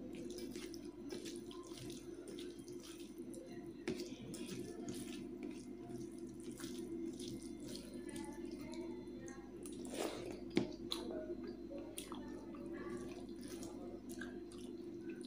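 Rice being mashed and mixed by hand into a thin chicken gravy in a steel plate: soft wet squishing with many light clicks, a couple of them sharper, over a steady low hum.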